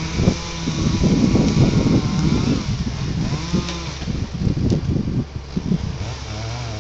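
Wind buffeting the microphone in loud, uneven gusts over the skyline yarder's engine, whose pitch rises and falls a few times as the carriage hauls a small tree along the cable.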